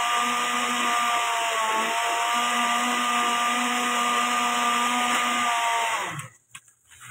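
Electric blender motor running steadily with a whine, its pitch dipping briefly about two seconds in, then switched off abruptly about six seconds in.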